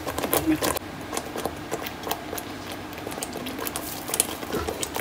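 Thick masala gravy bubbling and spitting in a pot over high flame, a constant crackle of small pops that is densest at the start and again near the end. This is the bhuna stage, frying the masala until the oil separates.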